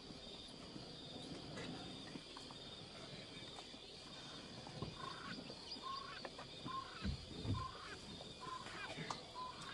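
A bird calling with a run of short, evenly spaced notes, a little more than one a second, starting about halfway through, over a steady high insect drone. A couple of dull low thuds about seven seconds in.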